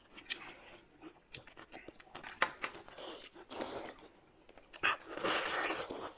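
Close-miked eating sounds: slurping of flat noodle strips and wet chewing with small mouth clicks. There are two longer slurps, a short one a little past halfway and a louder one about five seconds in.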